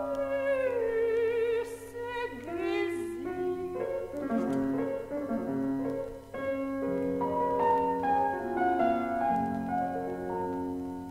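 Soprano singing with wide vibrato over piano accompaniment, her line sliding down and then sweeping up. After about four seconds the voice stops and the piano plays on alone in chords.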